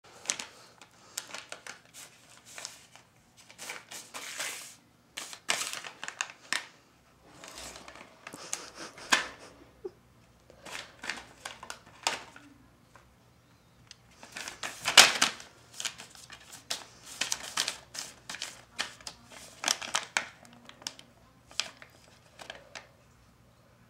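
A cat biting and pawing at a plastic treat pouch, the bag crinkling and rustling in irregular bursts, loudest about halfway through.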